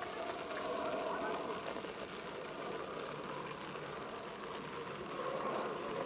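Distant voices of rugby players calling out on the pitch, several overlapping and none clear, over the open-air hum of the ground.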